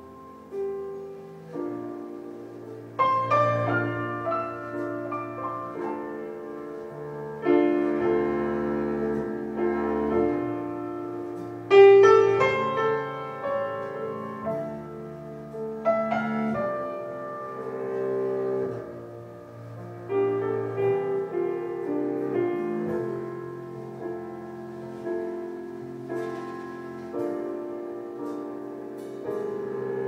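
Slow piano music: chords struck every few seconds and left to ring.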